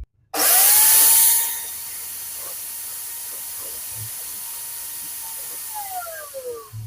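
Makita N9500N angle grinder switched on and running with no load: it spins up with a short loud rush, holds a steady whine, then is switched off and winds down with a falling whine near the end.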